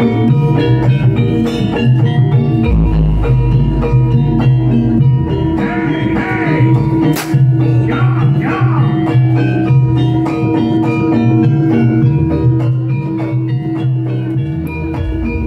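Live gamelan ensemble playing jaranan music: ringing metal keyed percussion and gongs over a steady low pulse and drums, with a wavering melodic line. A single sharp whip crack cuts through about seven seconds in.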